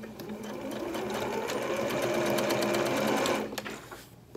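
Electric sewing machine stitching through layered denim and elastic, the motor speeding up and then slowing to a stop near the end: a short back-and-forth tack stitch holding the elastic in place.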